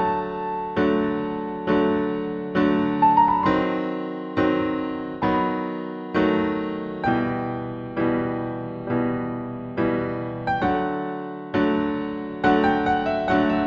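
Piano music: slow chords struck about once a second, each left to ring and fade before the next.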